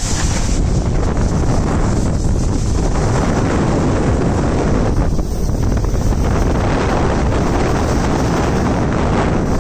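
Steady wind rush buffeting the microphone of a camera moving fast down a ski slope, mixed with the hiss of gliding over packed snow.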